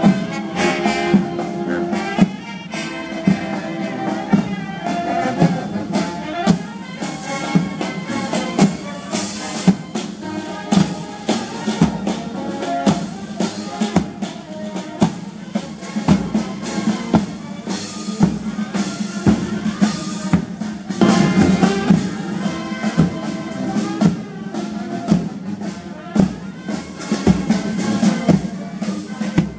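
Military marching band playing live: brass, including a sousaphone, over a steady marching drum beat.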